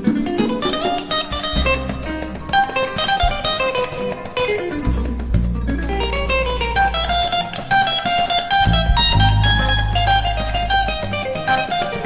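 Live jazz-fusion music: electric guitar playing fast runs of single notes, several of them sweeping downward, over long held low bass notes.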